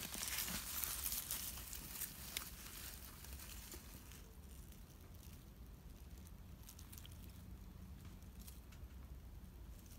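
Rustling and soft crackling in dry grass and leaf litter for the first few seconds, with a few light clicks. It then fades to a faint steady background with occasional soft ticks.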